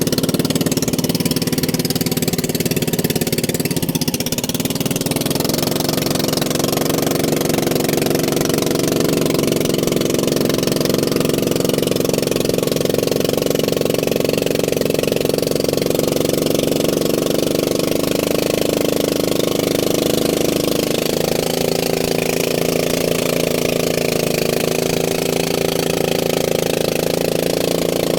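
An engine running steadily at an even speed, its pitch shifting slightly about three quarters of the way through.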